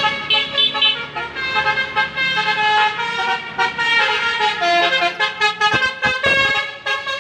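A tour bus's multi-tone musical horn, a 'telolet' horn, plays a stepping melody of several notes at once. Traffic rushes past about six seconds in.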